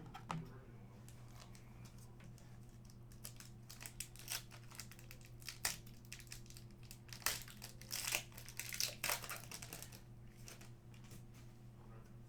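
A trading-card pack wrapper being handled and torn open, crinkling in irregular bursts that are busiest in the middle and die down near the end.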